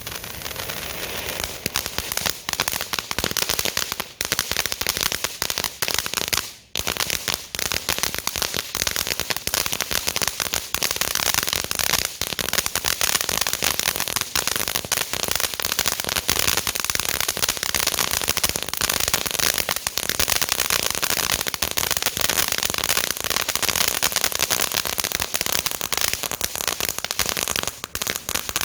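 A Little Monster ground fountain firework spraying sparks: a dense, steady crackling hiss that builds over the first second or so and keeps going, with a brief drop about six and a half seconds in.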